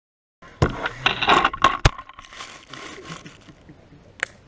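A camera being knocked over and falling to the ground: a quick clatter of knocks and scrapes for about a second and a half, the sharpest knock just under two seconds in. Then fainter rustling and one more sharp click near the end.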